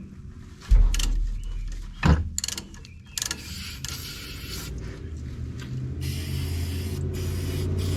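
Hand tools working on a drum-brake wheel cylinder and its brake-line fitting: a heavy thump just under a second in and sharp metal clanks around two and three seconds, then a steady low mechanical hum.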